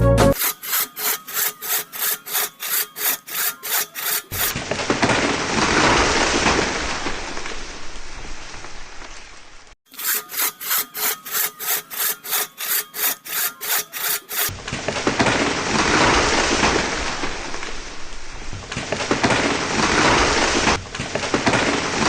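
Wood being sawn: a run of quick, even saw strokes, about four a second, gives way to a steadier rasping cut, and the pattern comes twice.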